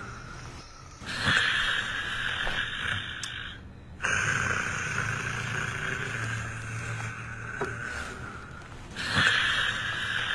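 A person snoring: long, noisy breaths that come several seconds apart, with a low buzzing drone between them.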